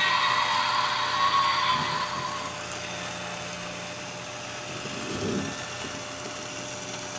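A small motor hums steadily. For the first two and a half seconds a louder, higher-pitched layer sits on top of it and then stops abruptly. A brief low swell comes about five seconds in.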